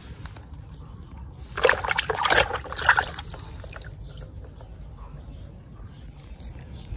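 A plastic toy animal being dunked and swished in a tub of muddy water: a burst of splashing and sloshing lasting about a second and a half, starting about a second and a half in.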